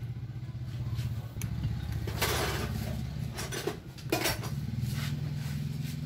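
Hand tools clinking and scraping on a car alternator's metal housing while it is taken apart, with several sharp clinks and a rasping scrape a little over two seconds in. A steady low hum runs underneath.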